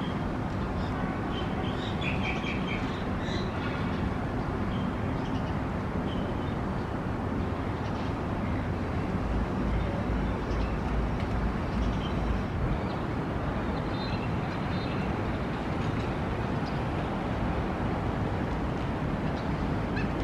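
Steady rumble of urban traffic, swelling with a deeper rumble around ten seconds in, with a few short bird chirps about two to three seconds in and again near fourteen seconds.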